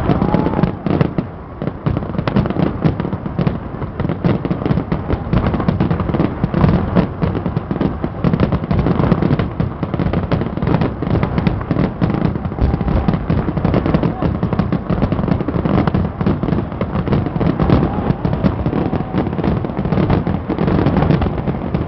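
Fireworks display: a dense, unbroken barrage of bangs, many per second.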